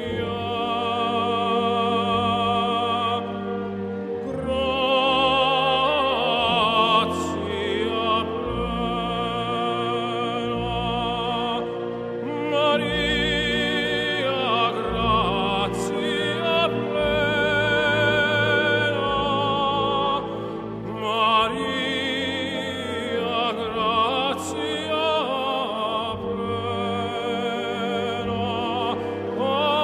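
Music: a singer in operatic style holding long notes with strong vibrato over orchestral accompaniment.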